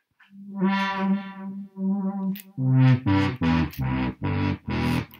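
Synthesizer voice played from a NuEVI breath-controlled electronic wind instrument: one long held note, then a quick run of short, separately tongued notes a little lower in pitch.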